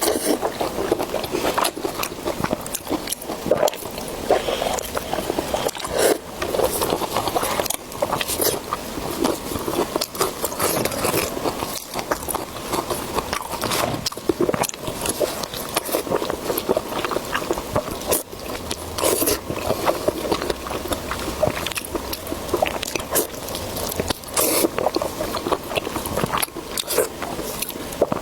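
Close-miked eating: a person biting and chewing food, with many short sharp clicks throughout.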